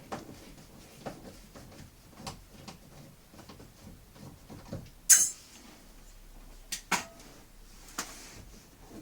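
Scattered clicks and knocks of objects being handled, with one sharp clack about five seconds in and two more about two and three seconds later.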